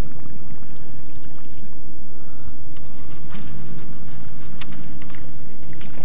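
A loud steady low rumble with a faint hum, and light clicking from a baitcasting reel being cranked in the second half as a lure is retrieved.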